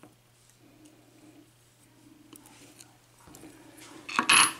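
Small pins, springs and parts of a disassembled padlock core being handled on a work surface: faint light clicks and scrapes, with one louder scraping rustle about four seconds in.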